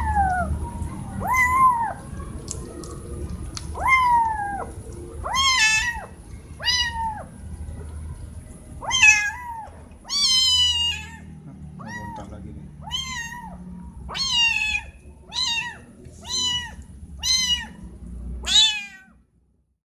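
Kitten meowing over and over: about fourteen short, high-pitched meows, each rising and then falling in pitch, coming one to two seconds apart and stopping suddenly near the end.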